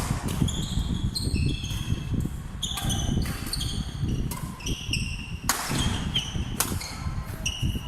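A racket-sport rally on an indoor court: athletic shoes squeaking sharply and repeatedly on the floor, with several crisp hits of the racket at irregular intervals.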